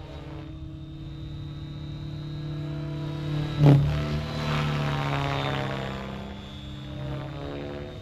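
Align T-Rex 700X electric RC helicopter in flight at about 2000 rpm headspeed: a steady rotor hum with a faint high motor whine, swelling for a few seconds past the middle. A single sharp knock about three and a half seconds in.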